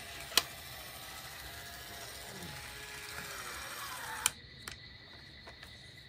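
Hard plastic toy rocket being handled: a sharp plastic click about half a second in and another a little past four seconds, with a few small ticks, over a faint steady hiss that drops after the second click.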